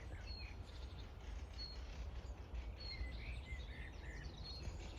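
Small birds chirping and singing, short high notes repeated again and again, over a low steady rumble.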